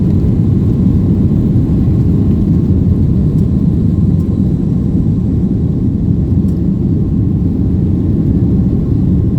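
Boeing 757 jet engines running at takeoff power: a loud, steady, deep rumble with a faint steady whine above it.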